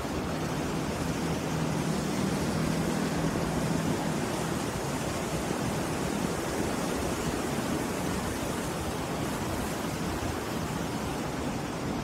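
Rough sea surf breaking and washing onto the shore: a steady, continuous rush of waves.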